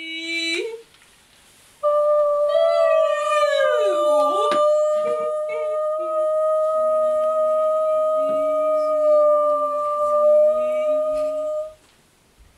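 Two women's voices singing wordless sustained tones. One holds a single steady high note for about ten seconds while the other slides down steeply from high to low, then hums a lower wavering note beneath it. A brief rising vocal note comes at the very start, and the held note cuts off shortly before the end.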